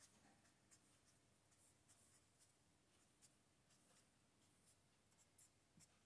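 Very faint scratching of a pen on paper: a string of short strokes, one after another, as small bond dashes are drawn.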